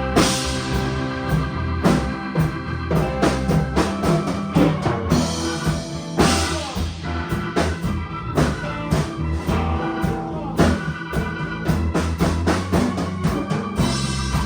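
A band playing an instrumental passage: a drum kit keeps a steady beat with bass drum and rim hits under bass and sustained chords.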